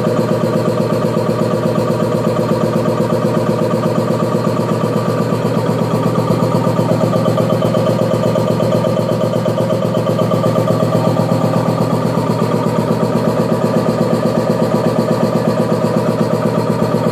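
Belt-driven piston air compressor running under load: an electric motor turns the finned pump through a V-belt, with a steady, fast, even pulse from the piston strokes as it pumps up a receiver tank already close to 10 bar.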